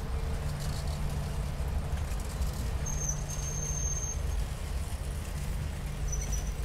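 Passenger cars of a train rolling slowly past, their steel wheels rumbling steadily on the rails. A thin high squeal comes in about three seconds in for over a second, and briefly again near the end.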